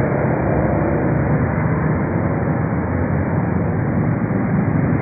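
Street traffic noise: motorcycle and car engines running close by on a wet road, a steady mixed rumble.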